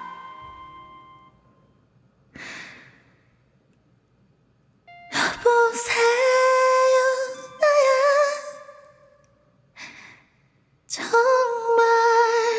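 A woman's voice: a faint breath, then three held high vocal notes of a couple of seconds each, the first starting about five seconds in.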